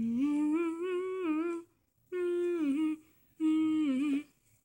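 A single voice humming a tune in three phrases, the first one long, with a wavering pitch.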